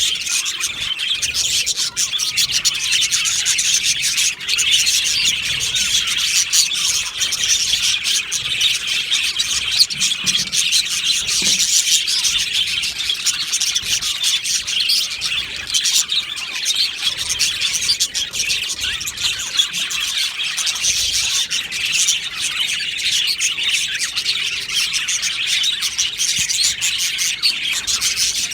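A flock of budgerigars chattering and warbling without pause, many high chirps overlapping into a dense, steady twitter.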